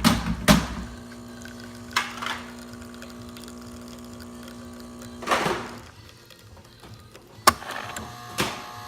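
Jura super-automatic espresso machine running after a test shot: a few quick knocks, then a steady hum until a short rush of noise about five seconds in. A sharp click and a thump follow near the end.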